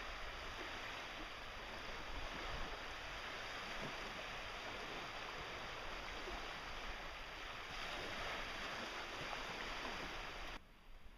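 Steady wash of small waves on a shoreline, with some low wind rumble on the microphone; it cuts off sharply near the end.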